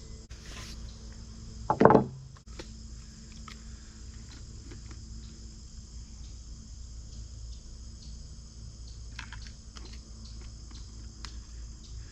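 Steady, high-pitched chorus of insects such as crickets, with scattered small clicks and a brief loud sound about two seconds in.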